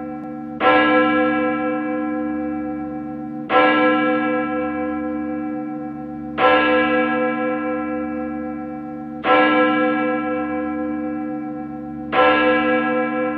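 A single large bell tolling slowly, about one stroke every three seconds, five strokes in all, each ringing on and fading before the next.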